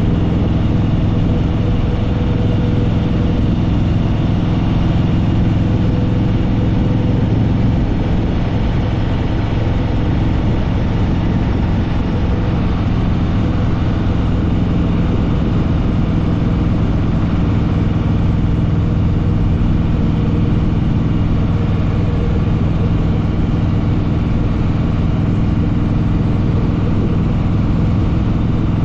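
Harley-Davidson Fat Boy Lo's V-twin engine running at a steady cruise, its level holding even throughout.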